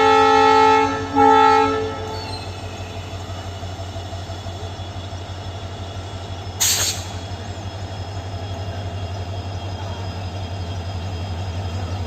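WDP-4D diesel locomotive's horn sounding in two blasts, the second ending about two seconds in, then the locomotive's EMD two-stroke diesel engine humming steadily as the train departs. A short sharp hiss about halfway through.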